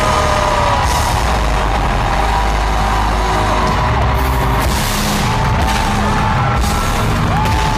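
Live pop music played loud through an arena sound system, with long held notes and a few noisy crashes, the loudest about four to five seconds in.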